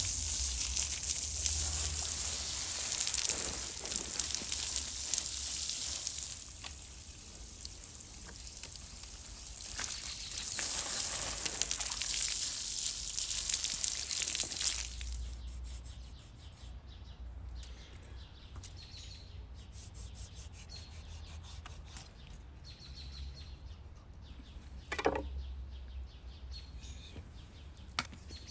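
Water from a garden hose spraying and splashing onto a large whole fish on a wooden board, a steady hiss for about the first fifteen seconds. Then it goes quieter, with faint short bird chirps and one brief sharp knock near the end.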